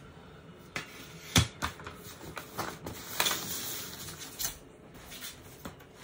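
Metal pattern rulers and a plastic grading triangle being set down and shifted on a paper-covered table: a few sharp clacks, the loudest about a second and a half in, with paper rustling around three seconds in.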